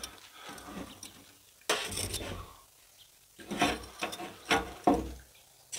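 Steel tongs clinking and scraping as lit charcoal heat beads are set down on a steel plate. There is a cluster of short clatters about two seconds in, and a few more near four and five seconds.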